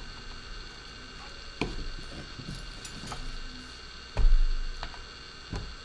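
Handling noise from work on a drone's plastic body with a small screwdriver: a few light clicks and taps, and one louder thump about four seconds in. A steady electrical hum runs underneath.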